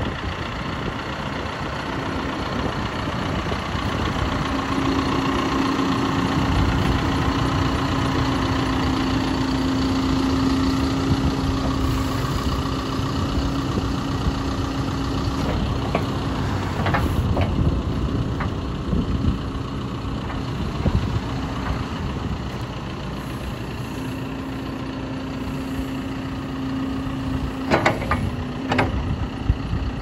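2017 John Deere 710L backhoe loader's diesel engine running while the backhoe boom and bucket are worked. A steady droning tone holds for long stretches as the hydraulics take load. There are a few sharp knocks, two of them close together near the end.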